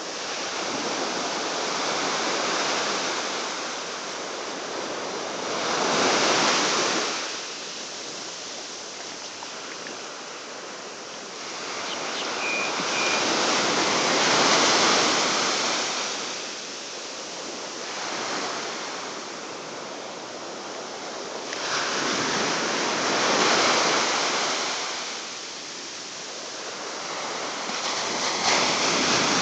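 Ocean surf breaking on a beach: a steady wash of water that swells loud as each wave comes in and fades between, with the big surges about eight to nine seconds apart.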